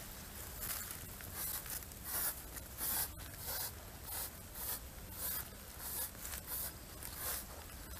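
Bare feet stepping and scuffing over dry, cracked mud and dry grass stems: a run of short, scratchy rustles, about one or two a second.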